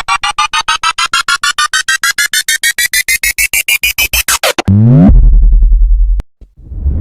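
Synthesized riser sound effect: a rapidly pulsing electronic tone, about seven pulses a second, climbing steadily in pitch for four and a half seconds, then sweeping quickly down into a low buzzing drone that cuts off suddenly about six seconds in.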